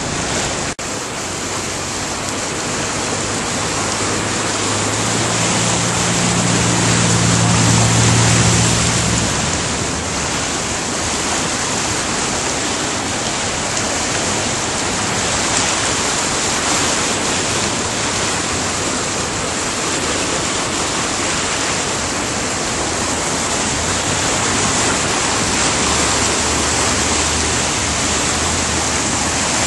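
Fast, muddy floodwater of the overflowing Boquet River rushing and churning: a loud, steady rush of water. A low steady hum joins in for a few seconds about five seconds in.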